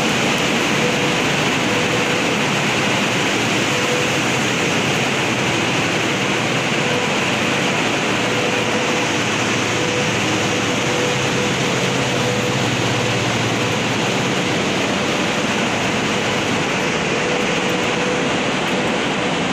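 Steady, loud rushing noise of running machinery, with a faint whine that comes and goes and a low hum for a few seconds in the middle.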